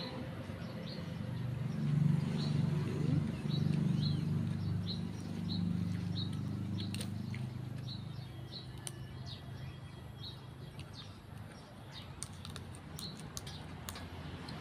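A small bird chirping over and over in short high notes, about one every half second to a second, over a low rumble that is loudest in the first half and fades, with a few sharp clicks near the end.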